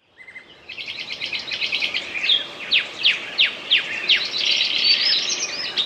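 Songbirds singing: a fast chittering trill, then a run of quick falling whistles at about three a second, then warbling notes.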